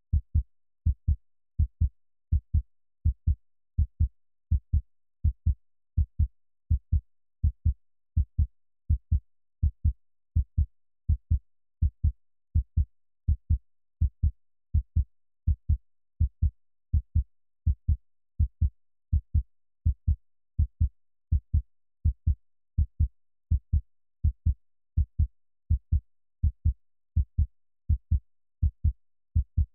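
Heartbeat sound effect: a steady lub-dub of paired dull, deep thumps, just over one beat a second.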